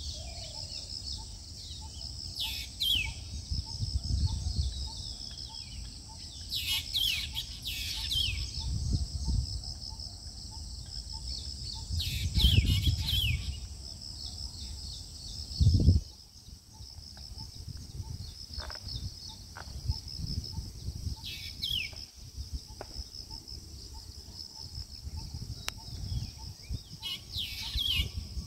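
A pair of black drongos calling to each other in short clusters of quick falling notes, about five clusters spread through, over a steady high-pitched buzz. A low rumble fills the first half and ends in a sharp thump about halfway through.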